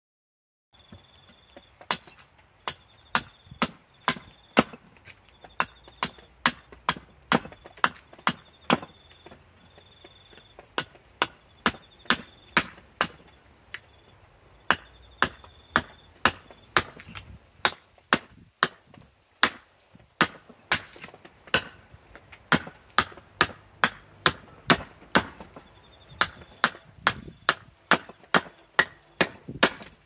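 Axe chopping a green banksia spoon blank on a chopping block. It makes a long series of sharp chops, irregularly spaced at roughly one to two blows a second, as the blank is hewn to shape.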